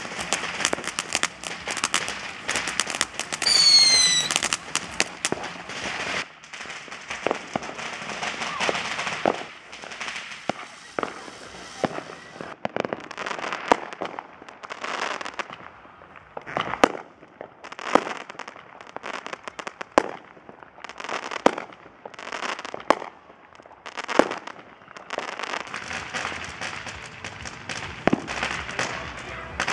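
Consumer fireworks: a long irregular string of sharp pops and crackles from firecrackers and small aerial bursts, over the hiss of spark-spraying ground fountains. A brief shrill whistle about four seconds in is the loudest moment.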